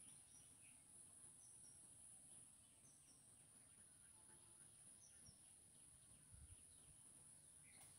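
Near silence: faint background ambience with a steady high-pitched hiss and faint short bird chirps now and then, and one soft low knock near the end.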